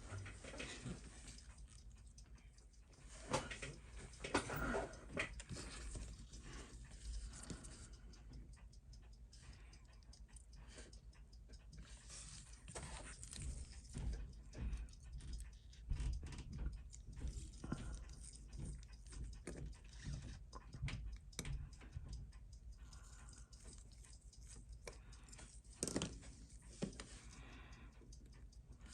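Irregular light clicks and taps of small watchmaking tools handling a quartz watch movement, with a few louder knocks about 3 to 5 seconds in and again near the end.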